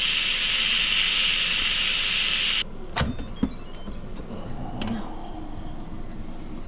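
Instant Pot electric pressure cooker on quick release: steam hissing loudly out of the release valve for about two and a half seconds, then cutting off suddenly as the pressure is spent. A few clicks and a clunk follow as the lid is unlocked and lifted.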